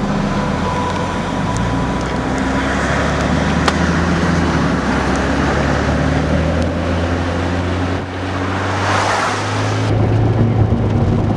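Car on the move: steady engine hum under road and tyre noise, with a brief rushing swell about nine seconds in.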